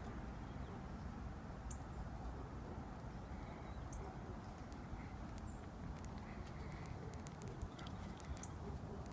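Faint outdoor ambience: a low steady rumble with a few brief, high bird chirps scattered through it.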